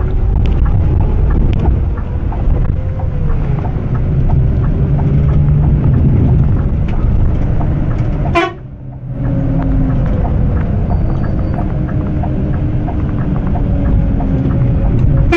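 Scania coach's diesel engine running steadily with tyre and road noise, heard from inside the cab as the coach goes downhill on a wet road, with a brief drop-out about eight seconds in.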